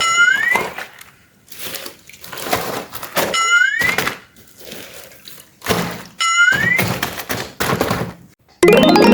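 Edited cartoon sound effects: dull thuds and three identical rising squeaky whoops, spaced about three seconds apart. Near the end a rising musical jingle starts.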